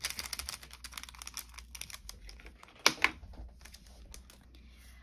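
Light, rapid clicking and rattling of small resin diamond-painting drills in a plastic bag being handled, with a couple of sharper clicks about three seconds in.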